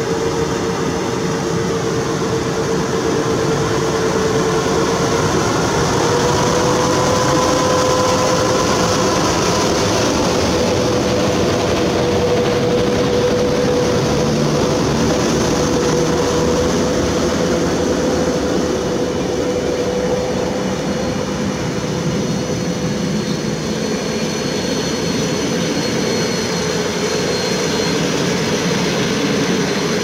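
Passenger train hauled by an EP09 electric locomotive rolling past close by while braking into the station: a steady rumble of wheels on rail with a steady whine over it, which rises slightly a few seconds in. A thin high squeal joins for a few seconds near the end.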